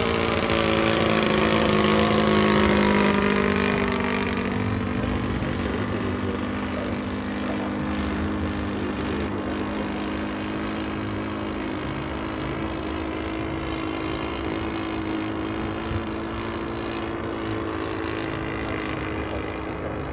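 Engine and propeller of a 1:5 scale SAI KZ II model airplane running in flight. It is loudest over the first few seconds and drops in pitch as it passes, then runs steadily and somewhat quieter as it flies farther off.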